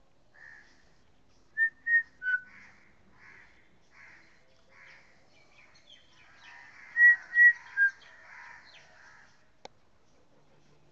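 Three short, sharp whistles, then three more about five seconds later, the last one dipping in pitch, over softer hoarse bird calls repeating roughly once a second. A single click comes near the end.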